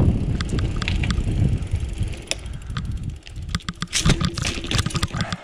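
Bicycle riding heard from a handlebar-level action camera: a low rumble of wind and tyres on the microphone that fades about halfway, with a steady run of ticks from the freewheel and the bike's rattle that grows dense near the end.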